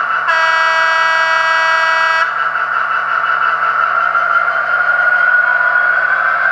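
Sound decoder of an ESU H0 Class 66 model diesel locomotive giving one horn blast of about two seconds through its small speaker, over the steady running sound of the simulated diesel engine. From about three seconds in, the engine sound rises slowly in pitch as the locomotive starts off.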